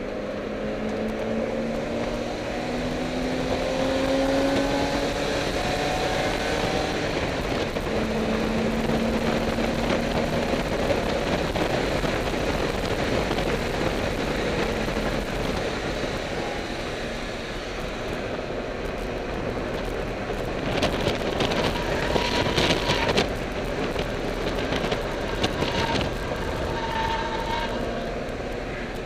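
Car engine pulling hard with its pitch rising under acceleration, heard from inside the cabin over steady wind and road noise at track speed. About two thirds of the way through comes a few seconds of rapid rattling clatter.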